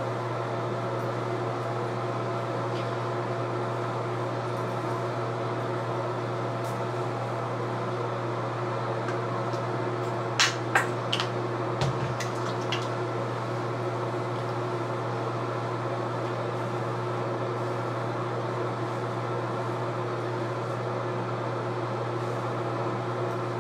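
Steady electric hum of a running fan, even in level and holding a low drone with several steady tones above it. A few sharp clicks and taps come about halfway through.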